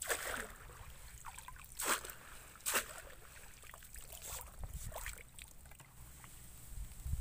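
Shallow marsh water splashing and dripping as a wire-mesh scoop net is dipped and lifted out. There are a few sharp splashes in the first three seconds and lighter water sounds after.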